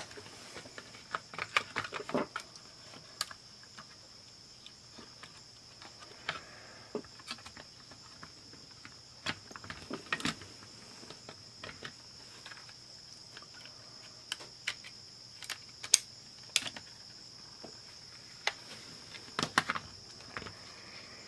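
Scattered light clicks and taps as a cassette player's circuit board and plastic case are handled and pressed together, over a steady high-pitched background tone.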